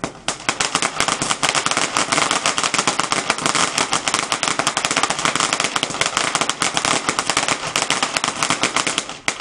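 Ground firework going off in a dense, rapid run of sharp firecracker-like cracks, many a second, for about nine seconds before stopping suddenly.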